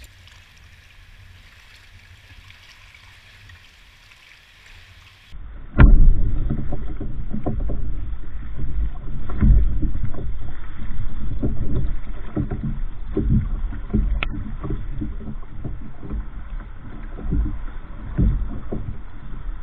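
Faint steady hiss for about five seconds. Then, after a sudden cut, loud wind buffeting on the microphone and choppy water slapping against a kayak's hull, with a few sharp clicks.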